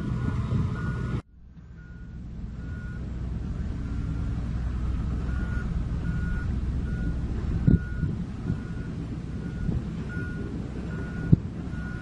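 Komatsu crawler bulldozer's diesel engine running under a reversing alarm that beeps about twice a second. The sound drops out suddenly about a second in and fades back up, and there are two sharp knocks, near 8 and 11 seconds.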